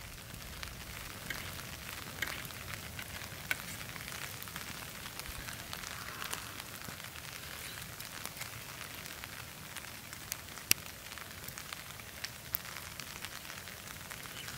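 Light rain falling steadily: a fine patter of drops with scattered sharper ticks, one louder tick about two-thirds of the way through.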